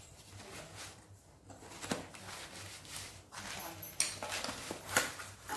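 Large scissors cutting through a cardboard shipping box, then the cardboard being handled and its flap pulled open: rustling with a few sharp clicks and taps.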